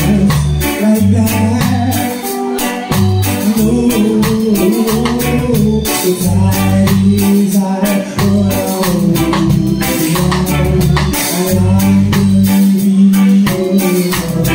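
Live band playing amplified: electric bass line, stage keyboard and a drum kit keeping a steady beat, with a voice singing over them.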